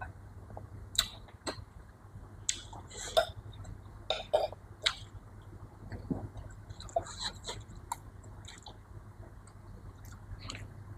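A person eating close to the microphone: wet chewing with short mouth clicks and smacks at irregular intervals.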